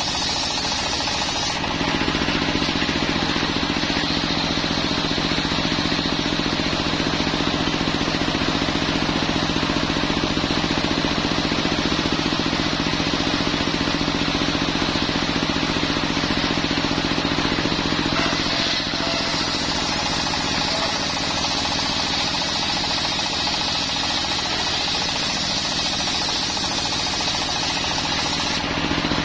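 Homemade circular-saw sawmill, its blade belt-driven by a single-cylinder stationary diesel engine, running steadily while ripping a coconut-wood log into planks. The tone and loudness shift a few times, about two seconds in, around two-thirds of the way through and near the end, as the blade goes into and out of the wood.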